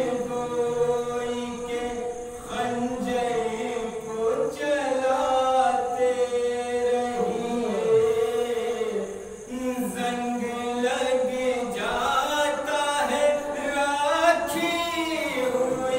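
A man's solo voice singing a devotional Urdu kalam into a microphone, unaccompanied, in long held melodic phrases with short breaths between them.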